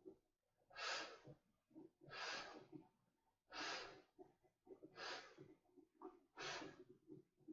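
A man blowing up a vinyl inflatable raft by mouth: five faint breaths at a steady pace, about one every second and a half, with softer low sounds at the valve between them.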